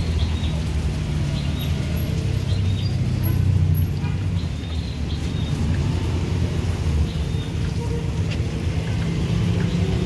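Steady low rumble of a motor vehicle engine running, from road traffic, over the faint hiss of bananas deep-frying in a wok of oil. Short high chirps come and go over it.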